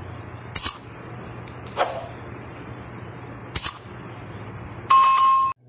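Subscribe-animation sound effects over a steady hiss: a double mouse-click about half a second in, a softer click a little later, another double click past halfway, then a loud bell ding near the end that cuts off suddenly.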